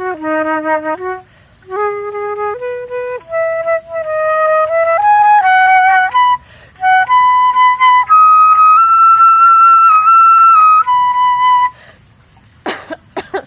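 Solo flute playing a slow improvised melody in separate held notes, climbing step by step to a long high note, then a lower note before it stops about twelve seconds in. A few short faint sounds follow near the end.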